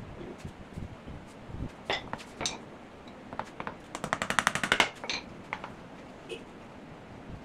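Wooden chair-frame pieces being handled and set down on a concrete floor: scattered knocks and clicks, with a fast rattle of clicks lasting about a second around four seconds in.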